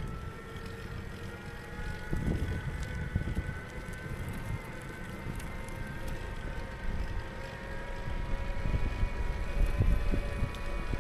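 Wind buffeting a frame-mounted camera's microphone and the tyres rumbling over asphalt as a tilting tadpole trike is ridden along a road, with a faint steady whine underneath.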